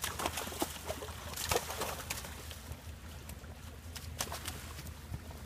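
Irregular knocks, scuffs and splashes from two bucks with locked antlers struggling in a shallow, muddy ditch, thickest in the first two seconds.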